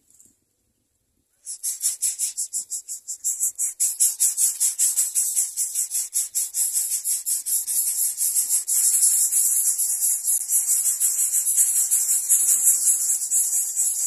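Greater coucal nestlings begging at the nest: a rapid, high-pitched pulsing call that starts abruptly about a second and a half in, about six pulses a second at first, then faster and denser.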